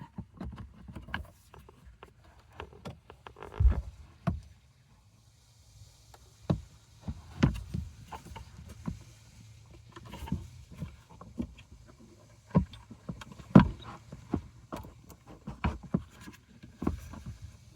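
Irregular plastic clicks, knocks and rattles of hands working behind a car dashboard, tugging at the wiring connectors of the i-MID display unit to unplug them; a few sharper knocks stand out, the loudest about four seconds in and near the end.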